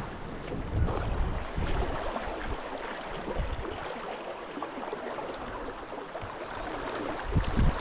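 Steady rushing of fast river water flowing past.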